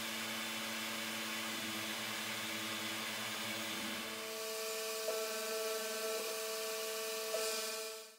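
Tormach 770 CNC mill running a program, its spindle and end mill cutting out a ratchet blank from plate with a steady machine hum. About four seconds in, the hum shifts to higher steady tones with a few faint clicks, and the sound cuts off abruptly near the end.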